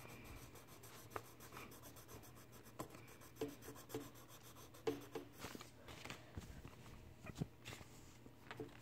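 Faint pencil scratching on paper in short shading strokes.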